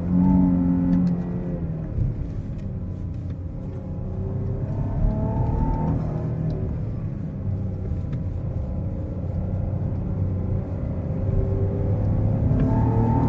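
Chrysler 300's 3.0-litre petrol V6 under way: a loud surge of acceleration at the start, then easing to a steadier drone, and climbing in pitch again under acceleration near the end. A short knock about two seconds in.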